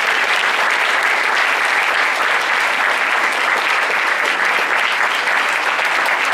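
Audience applause: many people clapping together at a steady level.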